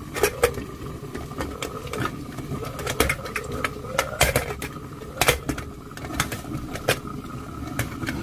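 Kitchen utensils knocking and clinking against a cooking pot, with sharp irregular knocks about one or two a second, over a steady background hum.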